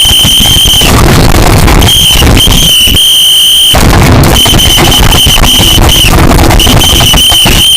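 A shrill, steady high-pitched alarm-like tone sounds on and off in several stretches of one to two seconds. Underneath it is loud, distorted noise from an overloaded recording.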